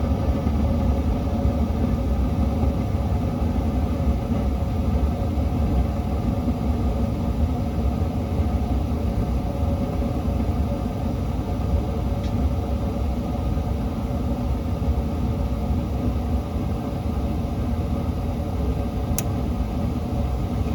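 Beacon/Morris hanging gas garage heater running with its burner lit, a steady low rumble with a constant hum.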